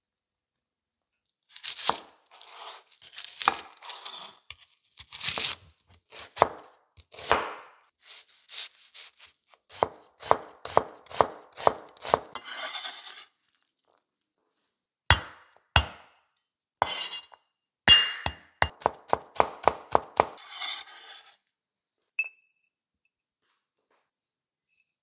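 Knife chopping onion on a wooden cutting board: runs of quick, crisp cuts, each ending in a knock of the blade on the board, several strokes a second. The chopping pauses briefly about halfway through and stops a few seconds before the end, followed by one faint clink.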